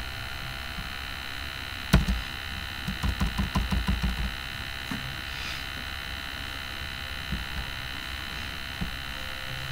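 Steady electrical mains hum, with a sharp click about two seconds in followed by a quick run of about a dozen computer keyboard key presses.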